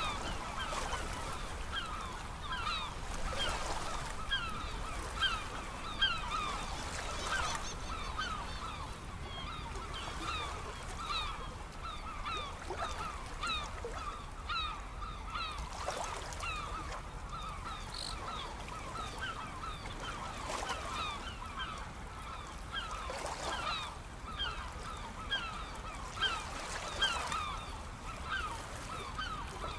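A large flock of birds calling without a break in short, overlapping honking calls, over a steady wash of sea surf.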